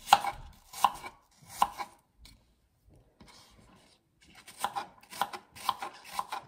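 Kitchen knife chopping a peeled apple into small pieces on a wooden cutting board: three sharp strokes about three-quarters of a second apart, a pause of about two seconds, then quicker strokes about two a second.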